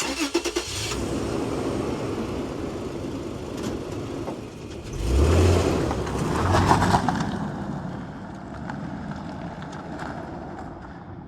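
A car engine running as the car pulls away. It revs up twice about halfway through, then fades as the car drives off.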